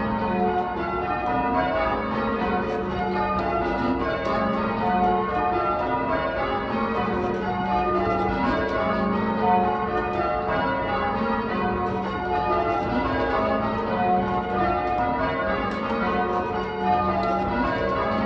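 Pulborough's ring of eight church bells (a 14 cwt eight in F#, cast mostly by Taylor's) being rung full-circle in call changes. The bells strike one after another in a continuous, even pattern over a steady low hum.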